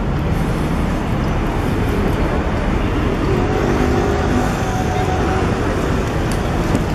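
Steady city traffic: cars running along a busy boulevard, a continuous low rumble of engines and tyres.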